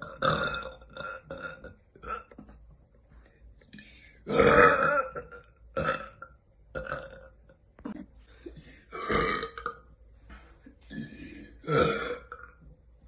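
Women burping one after another, a string of separate belches. The loudest and longest come about four and a half seconds in, around nine seconds and near twelve seconds.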